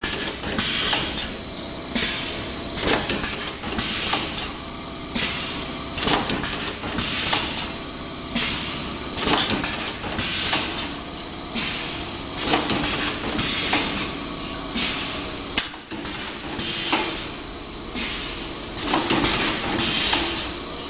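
Wire ring forming and welding machine running through its cycle: repeated sharp clanks mixed with short hissing bursts, roughly one a second.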